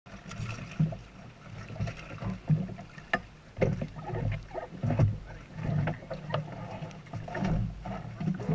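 Sounds aboard a small dive boat: irregular knocks and bumps, a handful of them sharp, over a low, wavering rumble.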